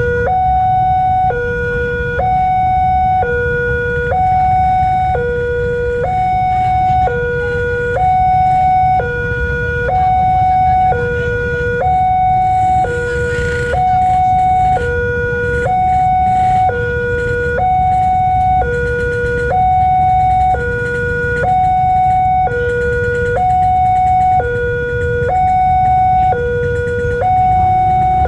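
Railway level-crossing alarm sounding a two-tone electronic warning, a higher tone and a lower tone alternating, each held about a second, signalling that the crossing is closed for an approaching train. A low rumble of idling traffic runs underneath.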